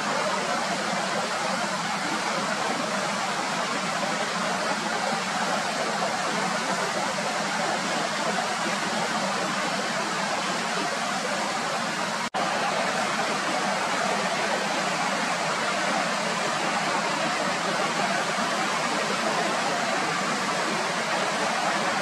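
Himalayan mountain stream rushing and splashing over boulders, a steady full water rush, with a momentary break about halfway through.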